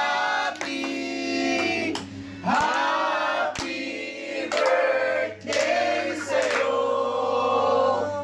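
A group of men and women singing together in long held notes, in phrases broken by short pauses.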